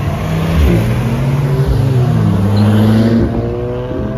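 Sports car engine accelerating: its pitch climbs, drops briefly about three seconds in as with a gear change, then climbs again.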